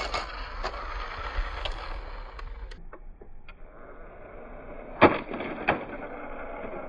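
Two plastic toy RC cars driving on concrete: a steady whirr of small motors and wheels with light scattered clicks, then two sharp plastic knocks, about five and nearly six seconds in, as the cars bump together.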